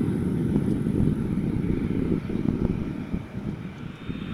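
Boeing 787-9 jet engines at taxi power, heard from a distance as a low, uneven rumble.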